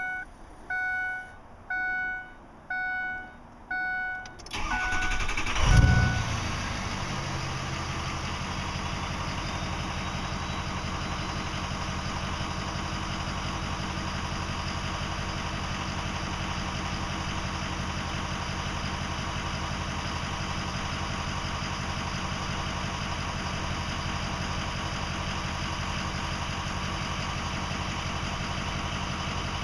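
A dashboard warning chime sounds five times, about once a second, then the 2005 Ford 6.0L Powerstroke V8 turbodiesel cranks and starts with a brief surge around five to six seconds in and settles into a steady idle. The owner suspects this idle points to a bad injector harness, FICM or injectors.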